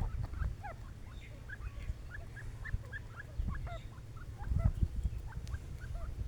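Partridges (francolins) chattering in a rapid run of short chirping notes, several a second, over a low rumble.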